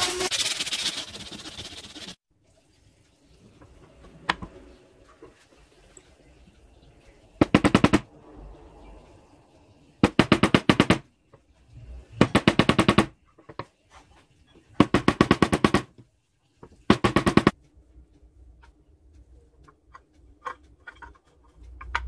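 A small hand-held power tool working carved wood: a steady motor sound cuts off about two seconds in, then five short bursts of fast rattling clicks, each about a second long, as the tool is run briefly against the wood again and again.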